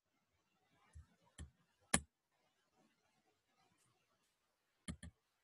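Computer mouse clicks: three single clicks in the first two seconds, then a quick double click near the end.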